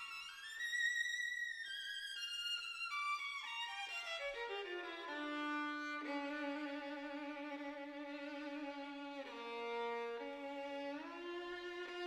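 Solo violin playing a slow melody: a falling run over the first few seconds, then long held low notes with vibrato.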